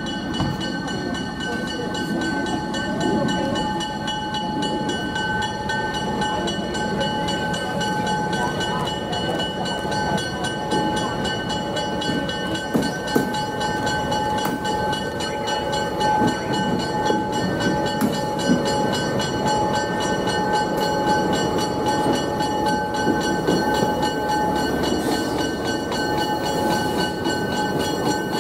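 FPA cab-unit diesel locomotives running, with a steady low engine rumble and a constant high-pitched whine held throughout, and a few sharp clanks.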